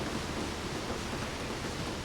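Steady heavy rainfall: a continuous even hiss of rain with no distinct drops standing out.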